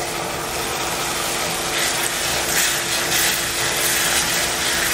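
Chopped tomatoes sizzling as they fry in hot oil in an iron pan, stirred with a metal spatula, over a steady low hum.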